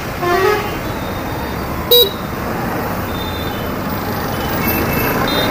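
Hero Destini 125 scooter riding through city traffic: steady engine and road noise, with one short, loud horn toot about two seconds in and fainter horns from other vehicles.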